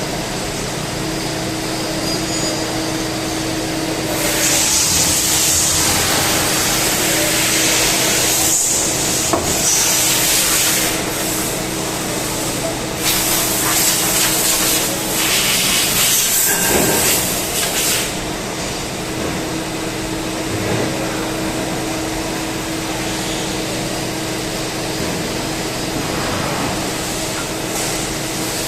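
CNC turning lathe running with a steady hum. From about four seconds in to about eighteen seconds in, a loud hiss comes and goes several times, then the hum carries on alone.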